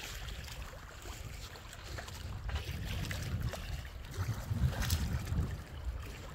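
Wind gusting on the microphone as a low uneven rumble, over water rushing and splashing along the hull of a sailboat under sail with its motor off.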